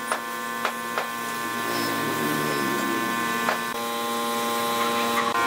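Air spray-finishing rig running: a steady motor hum with overtones and a hiss, as of the compressor feeding the air spray gun. Four sharp clicks come in the first second and at about three and a half seconds.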